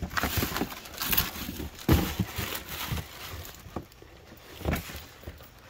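Cardboard shoe box and tissue paper being handled: rustling and crinkling with a string of light knocks as boxes are moved, a sharper knock about two seconds in and another near the end.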